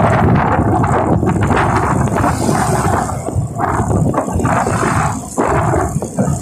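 Wind buffeting the microphone on a moving motorcycle, a loud gusting rumble with road and motor noise underneath, easing briefly a couple of times near the end.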